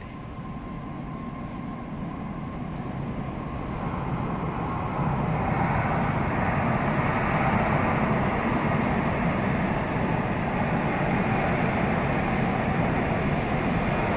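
Madrid Metro train approaching out of the tunnel and running into the station, its rumble building over the first five seconds and then staying loud and steady.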